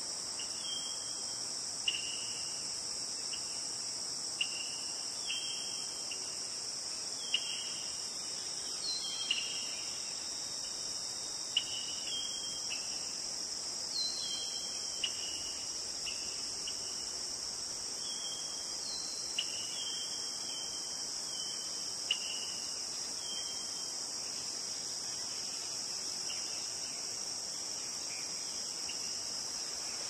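A steady, high-pitched chorus of crickets, with a bird's short chirps repeated over it until about three-quarters of the way through, and a sharp tick every few seconds.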